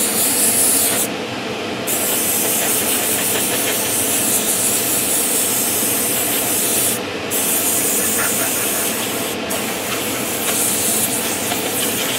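Airbrush spraying a very thin paint filter coat at high air pressure: a steady hiss that cuts out briefly three times as the trigger is let off. Spray-booth extractor fans run steadily underneath.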